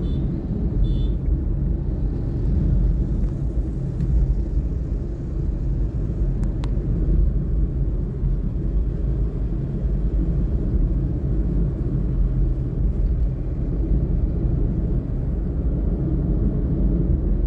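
Steady low rumble of a vehicle on the move: engine and road noise heard from on board, with one brief click partway through.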